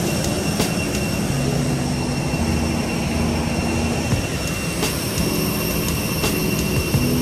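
Steady rumble and whine of an airliner cabin with the jet engines running, with a few light knocks and rattles.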